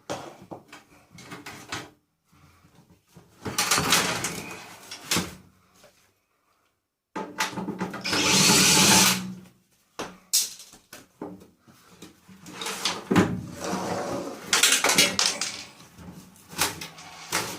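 Irregular clattering, knocking and rattling of sheet-metal microwave parts being worked apart with hand tools, with a louder noise lasting about two seconds near the middle.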